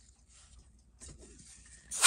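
Faint scratching and rubbing as a thumb in a rubber finger cot turns the rotating bezel of a Seiko 6309-7040 diver's watch, a little louder from about a second in. A louder noise starts right at the end.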